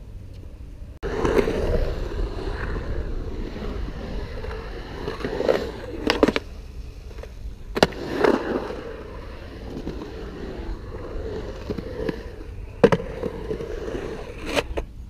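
Skateboard wheels rolling over a concrete bowl, starting suddenly about a second in, with several sharp clacks of the board, the loudest near the end.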